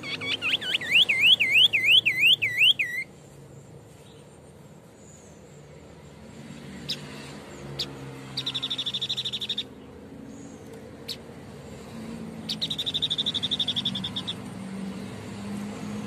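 White-breasted babbler singing: a loud rapid string of rising-and-falling whistled notes over the first three seconds, then two fast, high, even trills about a second or more long, with a few sharp clicks in between.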